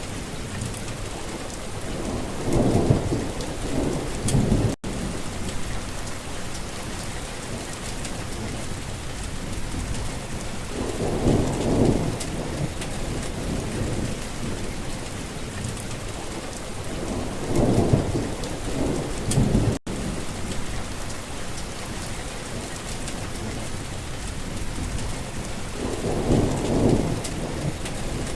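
Steady rain falling, with four low rolls of thunder, each lasting a second or two.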